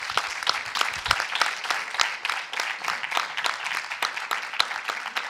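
Audience applauding, many hands clapping at a steady pace.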